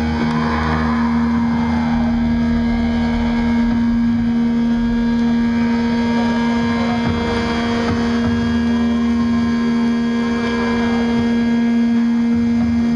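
Sustained drone from the stage amplifiers, typical of guitar feedback left ringing at the end of a metal set: one steady held tone over a low rumble, loud throughout.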